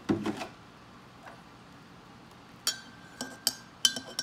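A dull thump at the very start, then a metal teaspoon stirring coffee in a ceramic mug: from about two and a half seconds in, about five sharp ringing clinks of the spoon against the mug wall.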